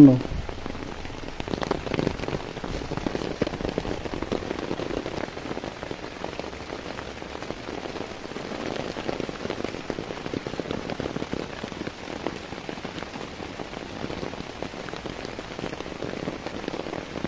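Steady rain pattering on an open umbrella overhead and on the broad taro leaves around it: a dense, even spatter of drops.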